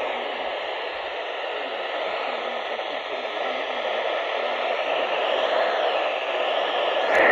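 Steady radio static hiss from a receiver picking up an emergency weather broadcast between messages, with a faint steady whine under it. A short louder crackle comes just before the end.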